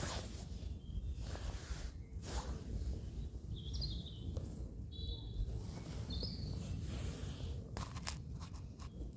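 Outdoor ambience: a steady low rumble with hazy rushes of noise, and a small bird chirping three short times in the middle. A few sharp clicks come near the end.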